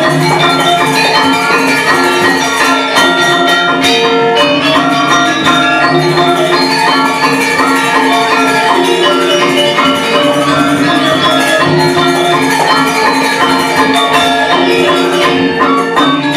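Balinese gamelan music: metallophones ringing a dense, continuous melody of sustained pitched notes.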